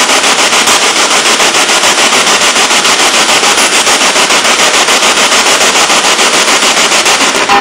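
Spirit box sweeping rapidly through radio stations: a loud, steady hiss of static chopped into even pulses many times a second. The investigators take it to hold spirit voices saying "get back" and "all exit".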